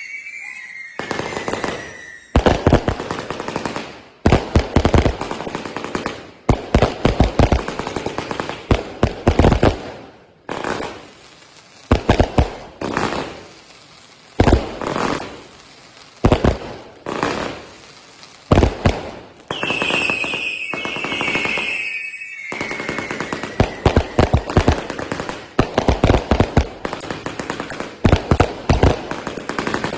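An 897-shot consumer firework cake, three 299-shot cakes chained together, firing rapid volleys of bangs with crackle, in salvos separated by short pauses. Near two-thirds through, a falling whistle sounds over the shots.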